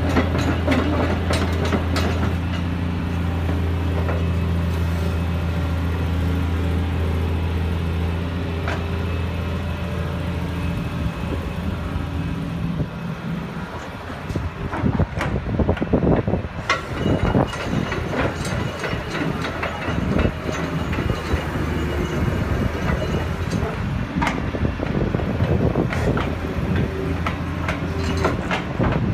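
Caterpillar 330CL excavator's C-9 six-cylinder diesel engine running with a steady low hum. From about halfway in, the excavator travels and its steel tracks clank and rattle irregularly over the engine.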